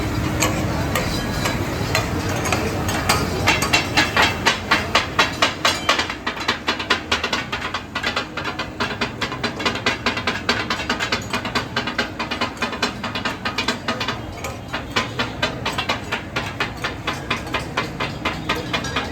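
Metal spatulas clanging rapidly and rhythmically on an iron tawa, chopping and mixing katakat offal, several strikes a second over a hiss of sizzling.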